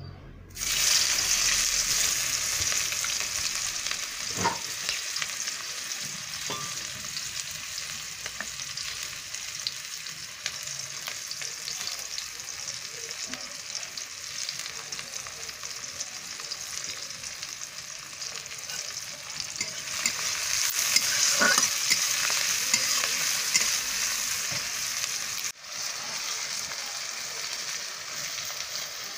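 Chopped onion sizzling in hot oil in an aluminium kadai. The sizzle starts suddenly about half a second in and grows louder again for a few seconds about twenty seconds in.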